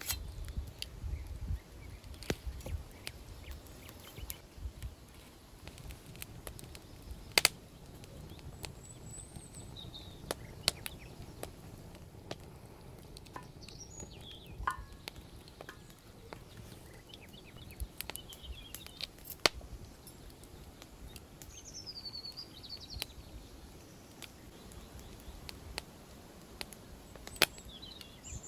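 Birds chirping now and then in woodland, with a few sharp isolated clicks or knocks that stand out above them.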